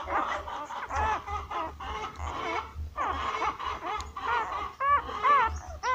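A litter of newborn puppies squeaking and whimpering as they crowd their mother to nurse: many short, high cries that rise and fall, overlapping at first and coming as clearer separate squeaks in the last two seconds.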